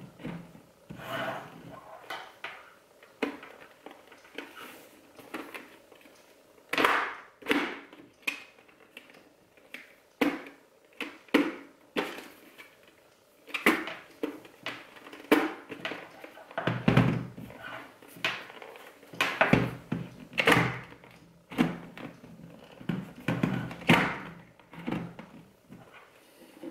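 Handling noises from a Bell Broozer motorcycle helmet on a tabletop: an irregular run of sharp clicks and hollow knocks as the visor is worked and the shell is turned and set down.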